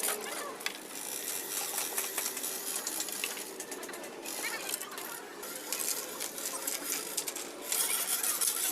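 Rapid metallic clicking and clattering, getting louder near the end.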